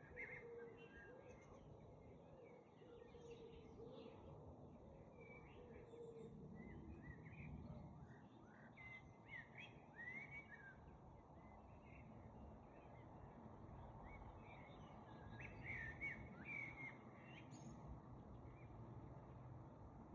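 Several songbirds chirping, faintly, with short chirps coming in clusters and pauses between, over a steady low background rumble.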